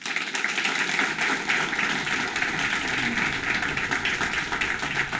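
Small audience applauding, starting abruptly as the winner's hand is raised and holding steady.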